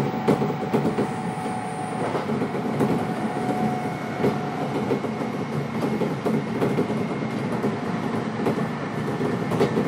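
Running noise heard inside a Kintetsu electric train car at speed: a steady rumble of wheels on rail with scattered clicks and a faint steady tone above it.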